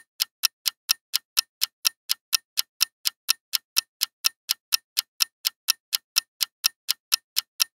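Clock-ticking countdown timer sound effect: short, even ticks, about four and a half a second.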